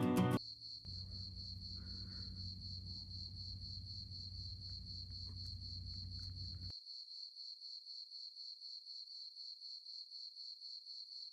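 Crickets chirping in a steady, high, fast-pulsing trill, with a low hum underneath that cuts off abruptly a little past halfway.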